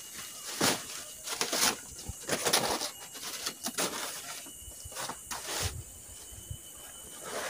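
Large broad leaves rustling as they are handled and laid on the ground, in several short bursts, with a cloth spread over them near the end.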